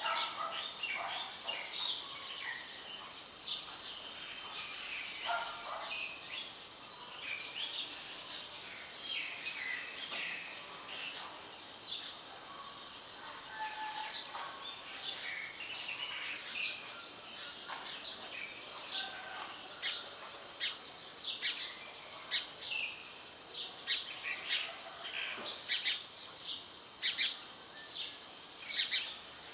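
Several small birds chirping and singing, with many short, quick calls overlapping; the chirping grows busier and louder in the second half.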